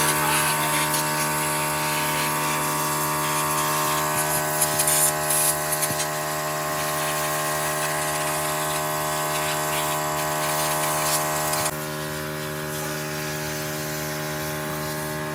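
A power tool runs with a steady high hiss and cuts off about twelve seconds in, over a steady machine hum that carries on after it.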